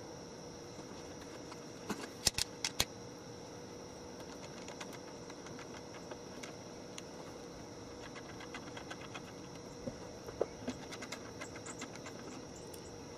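A clear plastic tube is knocked into place on a 3D-printed plastic hopper: four sharp clicks close together about two seconds in. From about eight seconds on come light, rapid ticks from a hand screwdriver as the tube's screws are started. A faint steady hum runs underneath.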